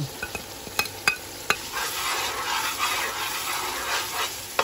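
Spices tipped into hot oil with fried ground onion, sizzling as a serving spoon stirs them. A few sharp clicks of the spoon against the glass plate or pot come about a second in, before the sizzling picks up.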